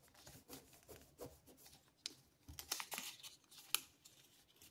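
Faint, scattered rustles and crinkles of a sheet of paper being folded by hand and its crease pressed flat. A few sharper crinkles come in the second half.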